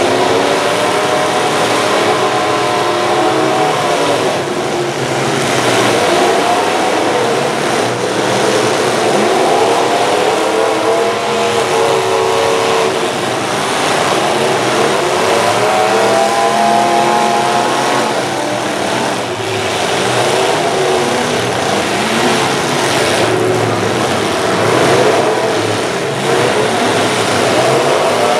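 Several full-size pickup truck engines revving hard, their pitches rising and falling over each other, with now and then a bang of trucks colliding.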